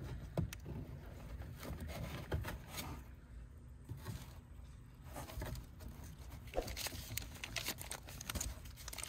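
A paper fuse chart being drawn from its plastic sleeve and unfolded: irregular rustling and crinkling with scattered small clicks and taps, busiest in the second half.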